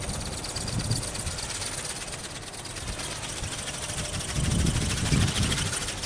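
RC ornithopter's small brushless motor and gear drive running steadily as it flaps overhead, with strong wind buffeting the microphone in low gusts about four and a half seconds in.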